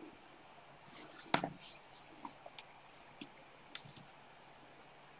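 A few faint, scattered clicks and light handling noises over quiet room tone, the loudest click about a second and a half in: someone working at a computer, closing a PowerPoint slideshow.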